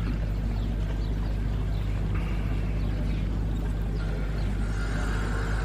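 Steady low rumble of outdoor background noise, with a faint high steady tone in the middle and another, lower one from about two-thirds of the way in.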